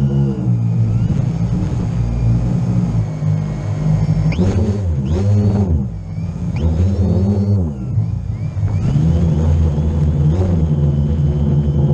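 Multirotor drone's motors and propellers, heard from its onboard camera: a steady hum whose pitch dips and climbs again several times in the middle as the throttle is cut and brought back during a fast descent.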